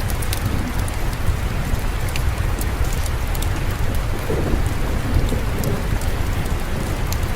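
Steady rain falling, with a low rumble of distant thunder underneath and scattered sharp ticks throughout.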